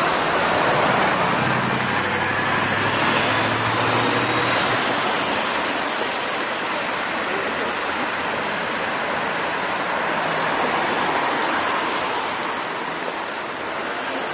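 A steady wash of city street noise, traffic and a crowd's hubbub mixed together, with a faint low engine hum in the first few seconds.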